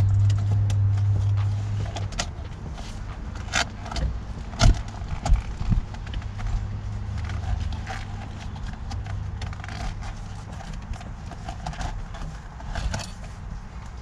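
Scattered plastic clicks, knocks and scrapes of hands prying the horn pad off a car's steering wheel, with a few sharper snaps. A low hum drops away about two seconds in.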